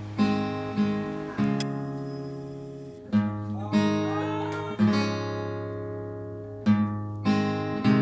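Background music of an acoustic guitar strumming slow chords, each left to ring out.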